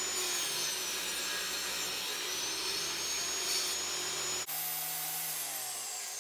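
Table saw motor and blade running steadily with a high whine; about five seconds in the saw is switched off and the pitch falls steadily as the blade winds down.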